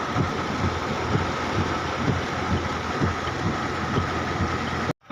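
Rushing floodwater: a steady, loud rushing noise with irregular low thumps, which cuts off abruptly near the end.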